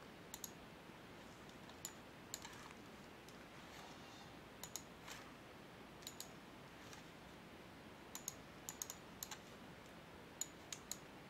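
Faint, scattered clicks from computer use, several in quick pairs and a cluster about eight to nine seconds in, over quiet room hiss.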